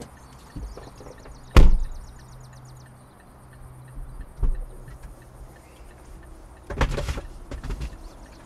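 A car door slams shut once, sharply, about one and a half seconds in; a few seconds later the SUV's rear tailgate is unlatched and lifted open with a quick cluster of clunks.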